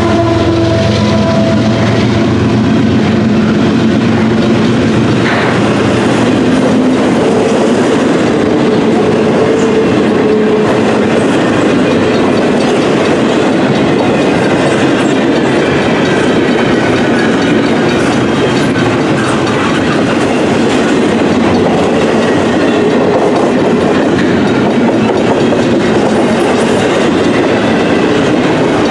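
Double-stack intermodal container cars rolling past close by: a loud, steady rumble and clatter of steel wheels on rail. The hum of the trailing locomotive that has just passed fades out in the first couple of seconds.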